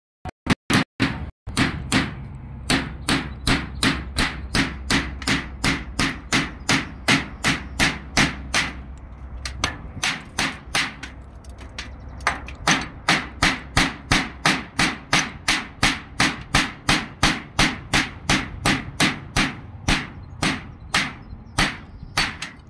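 Steady, rapid hammer blows, about three a second, with a brief thinning of the strokes around ten seconds in.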